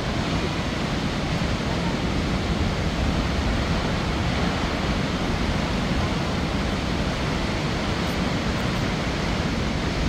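Steady rushing of a tall waterfall plunging into a deep gorge, mixed with wind on the microphone.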